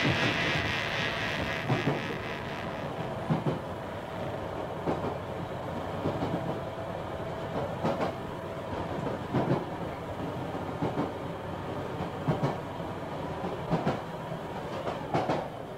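Rhythmic mechanical clatter, a knock about every second and a half, over a steady hum.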